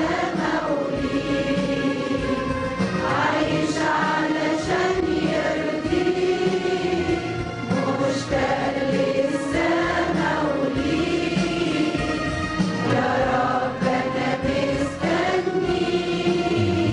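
Arabic Christian hymn music with a choir singing long, held notes that slide slowly in pitch.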